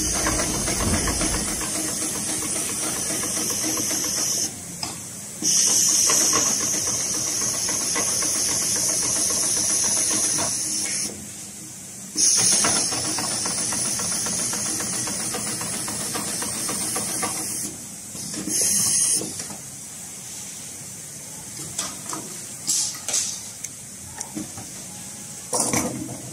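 HIGHTEX 733-30 long-arm extra-heavy-duty lockstitch sewing machine stitching webbing onto heavy tarpaulin, with a steady hiss over the running of the needle. It runs in several spells with short stops between them, and is quieter over the last few seconds apart from a few sharp knocks.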